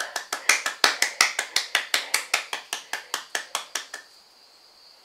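A person clapping their hands fast and evenly, about six sharp claps a second, which stop abruptly about four seconds in.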